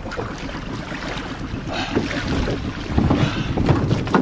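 Wind buffeting the microphone over water sloshing and draining from a wooden crab pot being hauled up against the side of a small boat.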